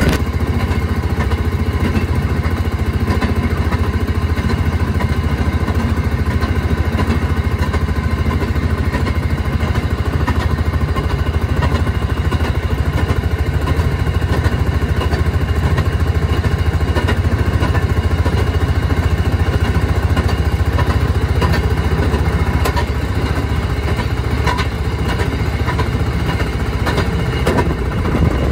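Rail speeder (track motorcar) engine running steadily as the car travels along the track, heard from inside its cab, with its steel wheels clattering on the rails.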